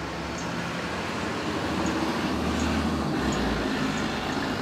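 Steady rushing background rumble with a low hum, swelling through the middle and easing off near the end.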